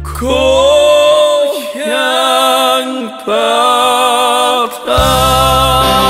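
A trot song: a singer holds three long notes with vibrato while the bass of the backing drops away. About five seconds in, the full band with bass comes back in.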